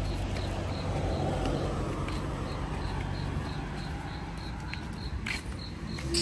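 A cricket chirping steadily, about three chirps a second, over a low rumble, with a few footsteps on a dirt path.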